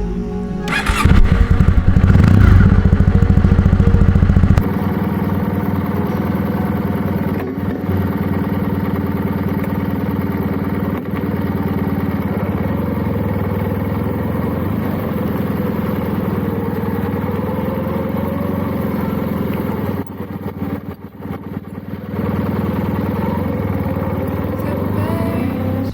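Motorcycle engine running while the bike is ridden: loudest for the first few seconds, then steady, with a brief drop in level about twenty seconds in.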